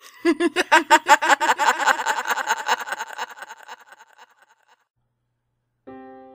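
Music only: a fast run of quickly repeated notes that fades away over about four seconds. After a short silence, a held chord comes in near the end.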